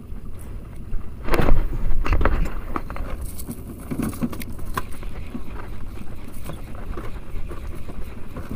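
Sea ambience from a small boat: wind on the microphone and water moving against the hull. Scattered clicks and knocks come from the fishing rod and spinning reel being handled, and the loudest burst comes about a second and a half in.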